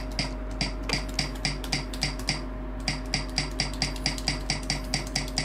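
Bare C³ Kiwi tactile switches on a Cyberboard mechanical keyboard with no keycaps fitted, pressed one after another in quick succession, about five clicks a second with a short pause midway, checking that each switch registers.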